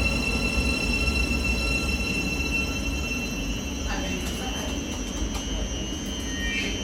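A train running by with a steady low rumble and a steady high-pitched whine, slowly fading.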